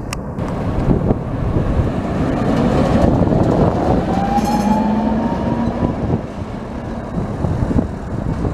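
Tatra T2 tram passing close by, its wheels rumbling on the rails. From about two to six seconds in, its electric traction motors give a whine that rises steadily in pitch as it picks up speed.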